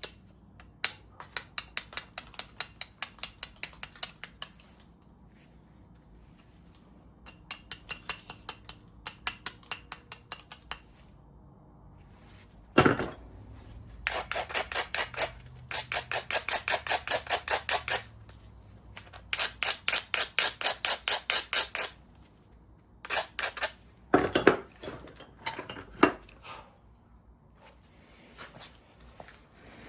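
Flintknapping: a stone edge being worked with runs of rapid, light, sharp clicks, about five or six a second, each run lasting a few seconds. Two louder knocks stand out, a little before halfway and about four-fifths of the way through.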